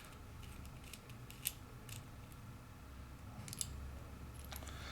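Faint, scattered metallic clicks and scrapes as the retaining ring is turned counterclockwise off a Shield Security lock cylinder.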